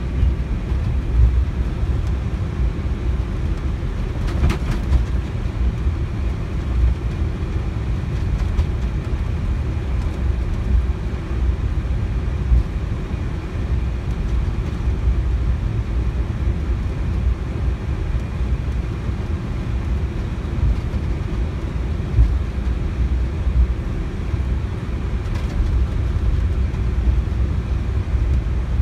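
Steady low rumble inside the cockpit of an Airbus A321neo taxiing, from its idling engines and its wheels rolling over the taxiway.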